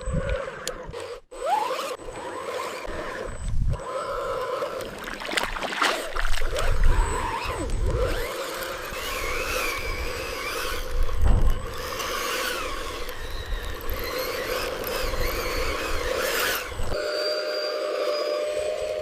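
Small electric drive motors and gearboxes of RC construction machines whining steadily, rising in pitch now and then, with scraping and knocking of the models working against dirt and each other, and a few low thumps.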